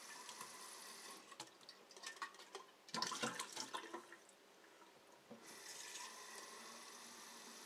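Water running from a faucet into a container. It runs unevenly: a steady stream, then irregular splashing spurts about three seconds in, then a steady stream again. The faucet is spitting, bringing out some brown water.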